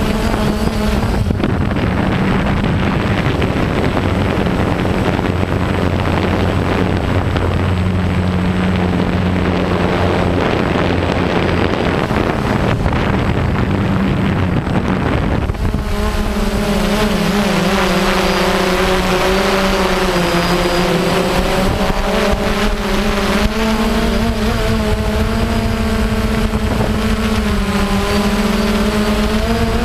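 Quadcopter drone's motors and propellers running with a steady hum and rush of noise. About halfway through, the tone changes and a set of higher, wavering pitches comes in.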